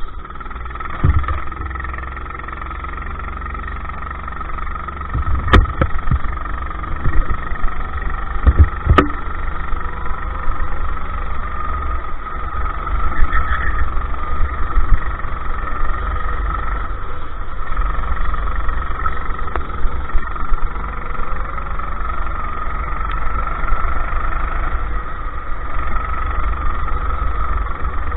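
Go-kart engine running steadily at racing speed, heard from onboard the kart, over a heavy low rumble. Two sharp knocks come about five and a half and nine seconds in.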